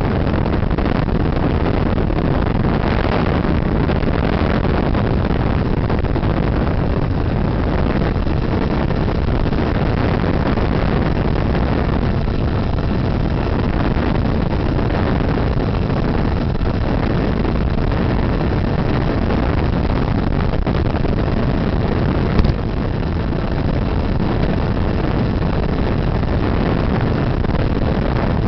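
Steady rush of wind and propeller noise from an FPV model plane in flight, picked up by its onboard camera, with one short click about 22 seconds in.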